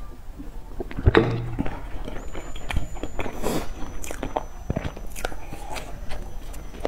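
Close-miked biting and chewing of a flaky baked pastry: crisp crunches and wet mouth clicks, with a louder thump about a second in.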